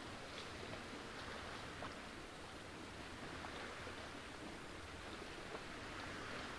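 Gentle lake water lapping against shoreline boulders: a faint, steady wash with small scattered ticks of water.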